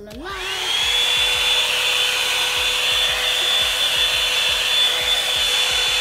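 Revlon One Step Hair Dryer and Volumizer switched on: its motor spins up with a quickly rising whine, then runs steadily, a high whine over a rush of blown air, until it cuts off suddenly at the end.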